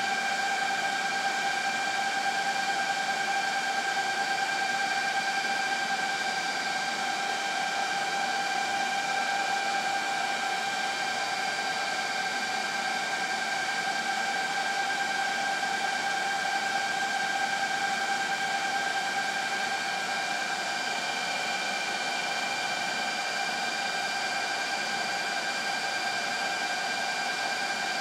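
Cooling fans of a rack-mounted SGI ISS-3500 storage server running steadily: an even rush of air with a steady whine of several high tones over it.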